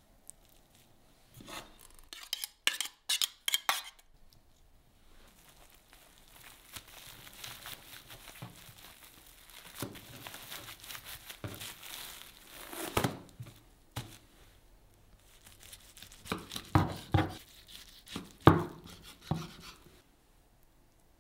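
Sushi rolled by hand in a cling-film-wrapped bamboo mat: the plastic crinkles and the slats rustle and click. A quick run of sharp clicks comes about two seconds in, and clusters of knocks and taps come in the second half.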